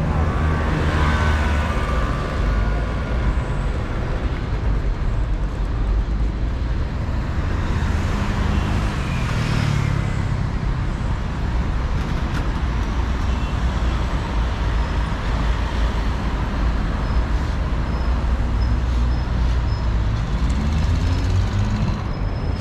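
Road traffic on a busy city street: cars and other motor vehicles passing close by, engines and tyres making a steady din that swells as individual vehicles go past.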